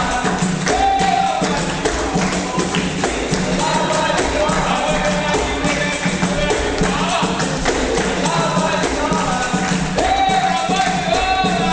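Capoeira roda music: singing over a pandeiro and other percussion keeping a steady rhythm.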